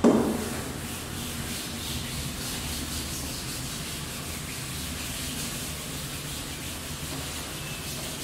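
A handheld blackboard duster rubbing chalk off a chalkboard in repeated wiping strokes.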